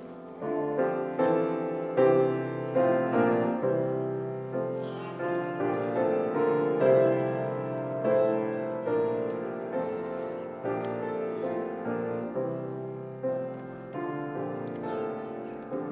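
Piano playing slow music, each note or chord struck and left to ring away.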